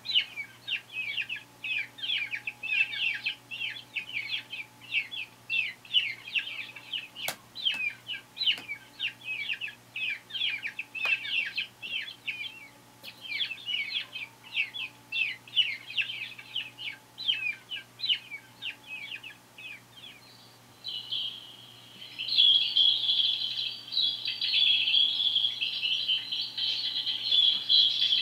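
Small birds chirping in a rapid series of short, high chirps, about three a second, with a short pause about twelve seconds in. Near the end the chirps merge into a louder, continuous twittering.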